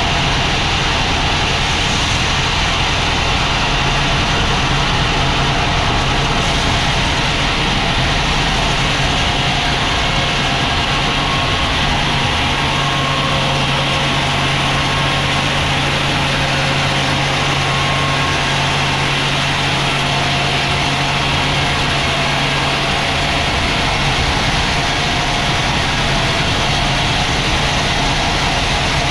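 Sawmill machinery running steadily: an engine-like drone under a dense hiss. A low steady hum comes in about twelve seconds in and stops about eleven seconds later.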